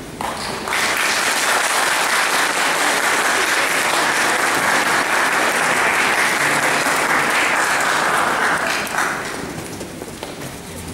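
Audience applauding steadily. The applause starts about a second in and dies away after about nine seconds.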